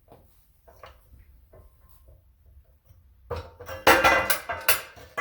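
A bent steel pipe dropping free of a Greenlee pipe bender as the bender's tension is let off and hitting the ground: a few faint clicks, then about three seconds in a burst of loud metallic clangs, with the pipe left ringing.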